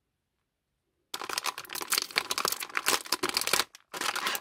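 Foil blind-bag packet crinkling and tearing as it is ripped open by hand. It starts about a second in, with a brief pause near the end.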